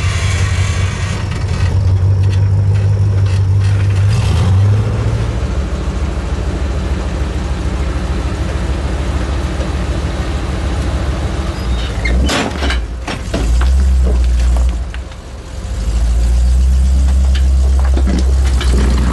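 Rock-crawling 4x4 engines running at low speed as the vehicles climb over boulders: first a tube-chassis rock buggy, then a flat-fender Jeep. The engine sound rises and falls, and there are a few sharp knocks about twelve seconds in.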